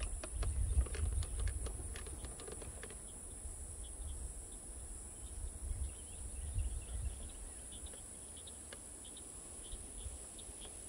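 A steady, high-pitched drone of insects, with faint short chirps coming in about halfway through. Wind rumbles on the microphone, and there are light handling clicks in the first few seconds.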